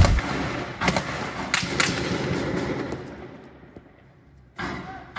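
Gunfire among buildings: a few shots in quick succession about a second in, each ringing on and echoing off the buildings, then one more shot near the end.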